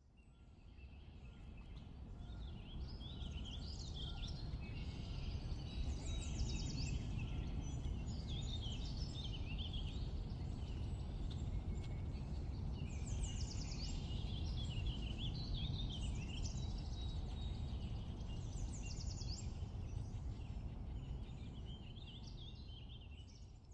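Several songbirds singing and chirping, with one bird repeating a short song phrase about every six seconds, over a steady low rumble. The sound fades in at the start and fades out near the end.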